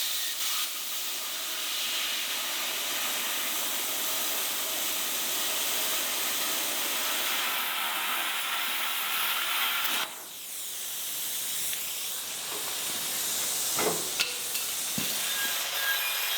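A metalworking tool hissing steadily while working the steel tubing of the door, breaking off briefly about ten seconds in and then starting again.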